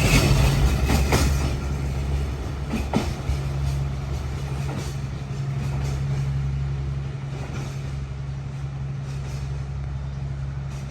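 Diesel-hauled passenger train pulling away: a steady low diesel engine drone with a few knocks from the wheels or couplings in the first three seconds, growing quieter.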